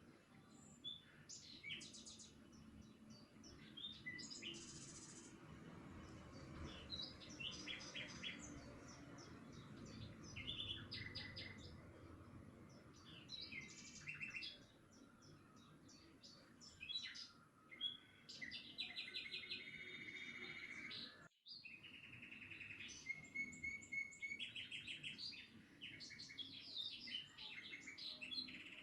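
Many small birds chirping and singing over one another, with short trills and repeated notes, broken by a sudden brief gap about twenty-one seconds in.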